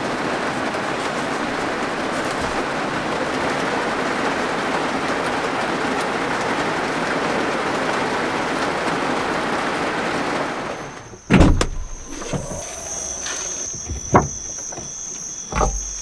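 Steady rain on the roof of a camper van, heard from inside. About ten seconds in it cuts off, leaving a high, steady cricket trill and a few dull thumps.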